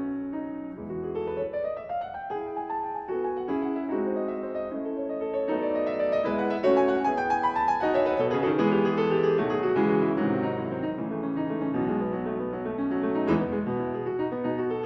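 Background piano music: a flowing run of single notes and chords, steady in level.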